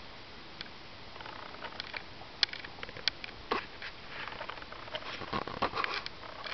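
Irregular clicks, taps and short scuffs from handling the rod and spinning reel while a lure is retrieved, growing busier and louder in the second half.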